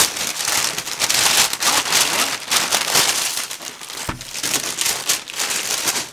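Paper wrapping crinkling and rustling continuously as items are unwrapped and pulled out of a parcel, with a light knock about four seconds in.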